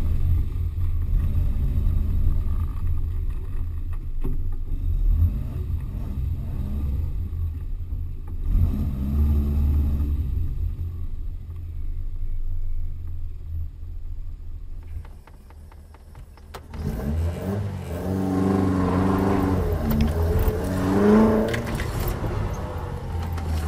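Classic saloon car's engine driven hard round a tight cone course, revving up and easing off through low gears. It drops away briefly about sixteen seconds in, then picks up again with rising and falling revs.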